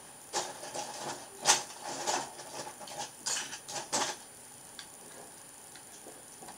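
Plastic Lego bricks clicking and clattering as pieces are picked out and pressed together: a run of irregular clicks and rattles that stops about four seconds in.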